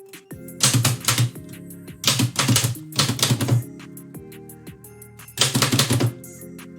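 A 1918 Oliver typewriter being typed on in four quick bursts of rapid keystroke clacks, with short pauses between them, over background music.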